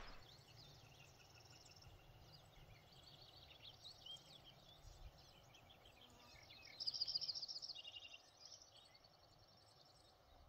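Near silence with faint wild songbird chirps, and a short rapid trill of repeated high notes about seven seconds in.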